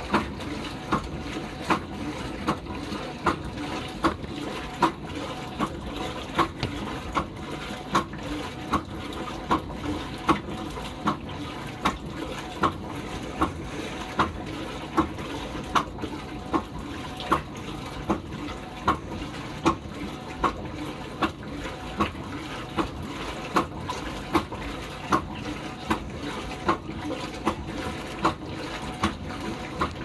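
Top-loading washing machine in its wash cycle: water sloshing steadily through the load, with a sharp swish-and-clunk a little more than once a second as the agitator swings back and forth.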